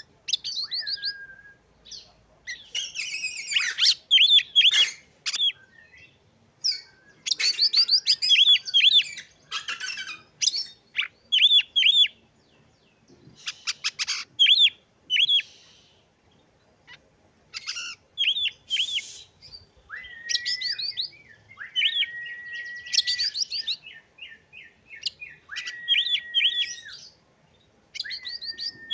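Oriental magpie-robin singing: short phrases of quick rising chirps repeated with pauses between them, and in the second half several long, level whistled notes.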